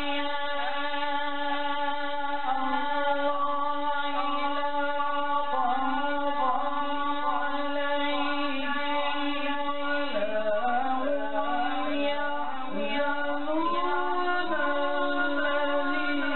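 A man reciting a naat, an Urdu devotional poem in praise of the Prophet Muhammad, in a melodic unaccompanied chant into a microphone. His voice glides and ornaments over a steady low held tone.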